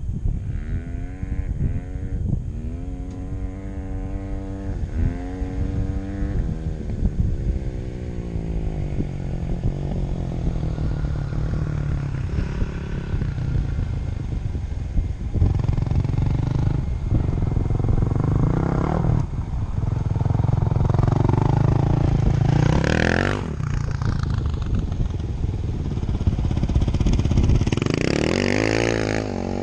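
Dirt bike engine revving and accelerating, its pitch climbing in quick repeated steps through the gears over the first several seconds, then rising sharply and dropping again about 23 seconds in and climbing once more near the end. Under it runs the steady low rumble of a vehicle driving over the playa.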